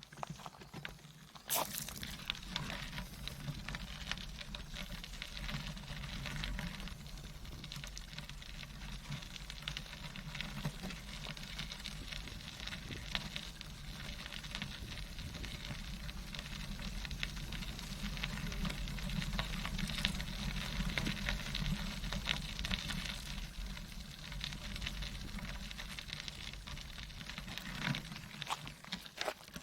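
A tandem bicycle rolling along a trail: a steady noise of the tyres on the path, with a low rumble and the odd sharp click or rattle.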